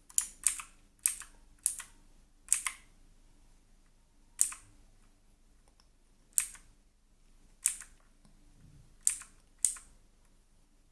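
Keys on a Redragon Manyu (K579) mechanical keyboard being pressed one at a time. The sharp clicks come in quick pairs in the first three seconds, then singly every second or two.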